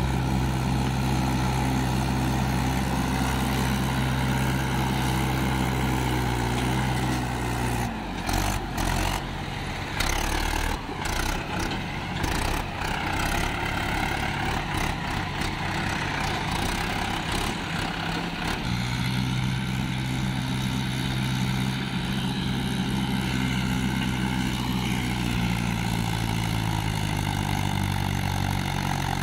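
Swaraj 843 XM tractor's three-cylinder diesel engine running steadily under load as it climbs a sandy ramp. Through the middle stretch the sound turns choppy and uneven. Then the steady engine note returns, rising and falling in pitch near the end.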